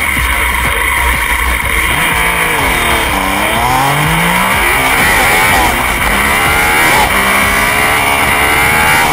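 Yamaha FZ-09 motorcycle's engine revving hard as it accelerates down the strip, its pitch climbing, dropping and climbing again through the gears, over a steady rush of wind.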